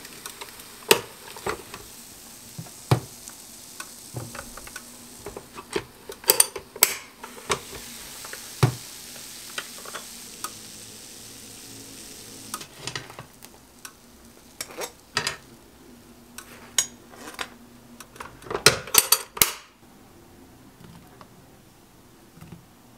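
Butter sizzling in a closed electric waffle maker as croissant dough cooks, a soft hiss that fades away over the first dozen seconds. Scattered sharp clicks and knocks of the appliance and utensils are heard throughout, with a burst of clatter later on as the croffles are plated.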